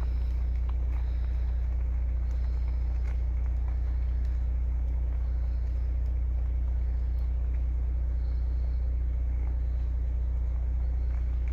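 Vehicle engine running at a steady, low idle, with a few faint clicks over it.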